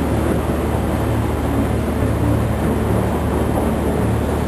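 Boat's engine running steadily with a low drone as it crosses the frozen sea, under a constant rushing noise.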